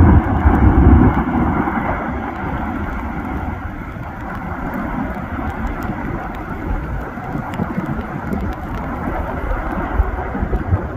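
Roaring rumble of the erupting Fagradalsfjall volcano, mixed with wind on the unshielded microphone. It is heaviest in the first two seconds, then settles to a steadier, somewhat lighter roar.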